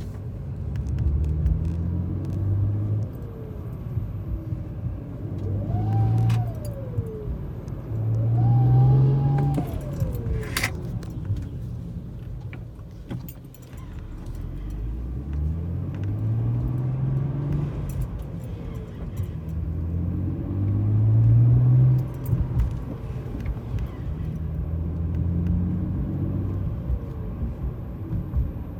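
2011 BMW 335i's N55 turbocharged straight-six pulling through several accelerations, with a howling whistle that rises and falls in pitch over the engine note, clearest about five to ten seconds in. The howl is the sign of a failing turbocharger, later confirmed as a blown turbo.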